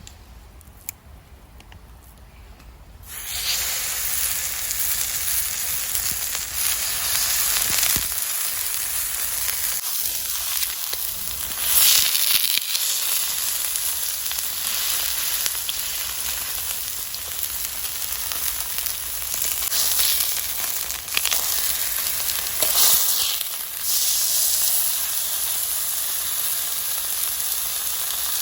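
Beef loin steak sizzling on a hot iron griddle: the sizzle starts suddenly about three seconds in and then runs on loudly, swelling briefly a few times.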